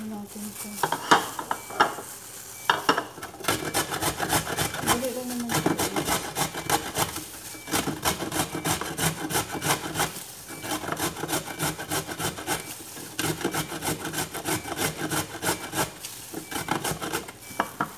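Raw carrot being grated on a stainless steel box grater: quick repeated scraping strokes, with a few short pauses.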